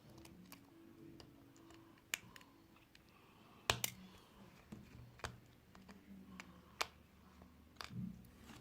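Scattered light clicks and taps of small tools and parts during phone disassembly, about half a dozen sharp ticks, the loudest a little under four seconds in.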